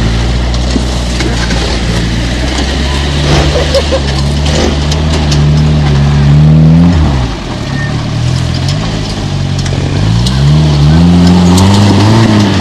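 Off-road trials buggy's engine working hard up a hillside section. Its revs climb to about seven seconds in, drop away sharply, then climb again from about ten seconds in.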